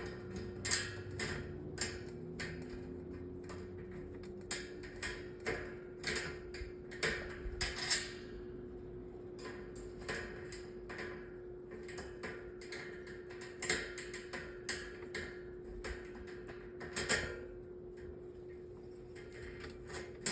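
Irregular clicks and light metal taps from handling the parts of a metal table fan while fitting it back together, over a steady hum.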